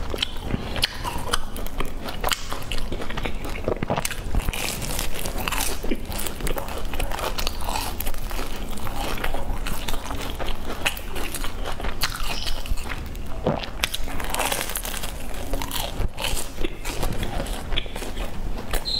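Close-miked biting and chewing of a fried bun with a crisp golden crust: irregular crunches and wet mouth sounds.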